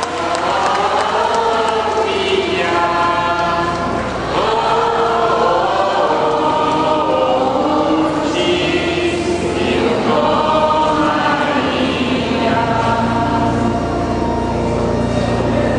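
Choir singing a slow religious hymn in a church, with long held notes that move from one pitch to the next.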